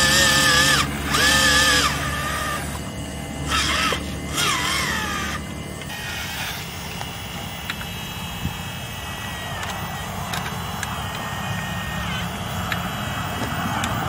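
Radio-controlled hydraulic excavator's electric pump motor whining, its pitch stepping and sliding and cutting out briefly as the boom and bucket are worked. About halfway through it settles into a steadier, quieter whine with faint clicks.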